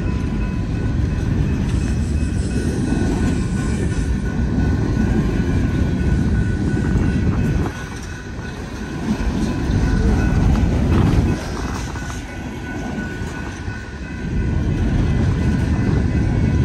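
Empty coal gondola cars of a freight train rolling past, their wheels rumbling and clattering on the rails; the rumble eases briefly about eight seconds in and again past the middle. A crossing bell rings steadily underneath.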